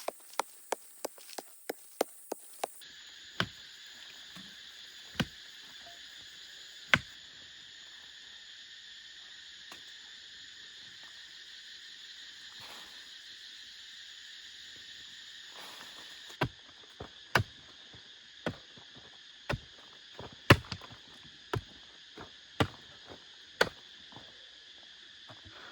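Sharp strikes of a hand tool into wood or earth: a quick run of about three a second at the start, a few single blows after, then blows about once a second later on. A steady high insect drone, like cicadas, runs underneath.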